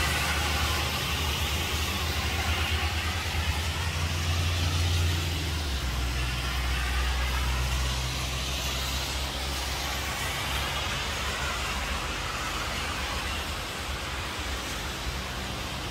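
Road traffic on wet streets: tyres hiss as cars pass, over a steady low rumble that shifts about five seconds in.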